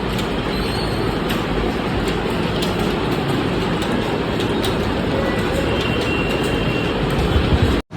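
Many computer keyboards clattering at once as a room of students types a timed test: a dense, steady wash of key clicks.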